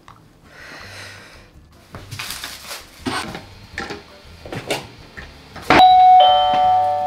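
Knocks and clatter of shoes and a shoe-cabinet door in a house entryway, then a two-note ding-dong chime like a doorbell's, loudest near the end and ringing on as it fades.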